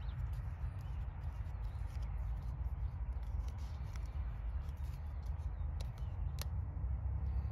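Small plastic clicks and rubbing as a plastic injection nozzle is screwed onto a foam cartridge by hand, with one sharper click about six seconds in, over a steady low rumble.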